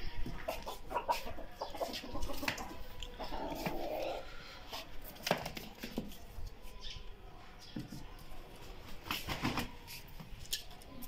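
Domestic chickens clucking in short, scattered calls, with a few sharp knocks about five seconds in and again about nine seconds in.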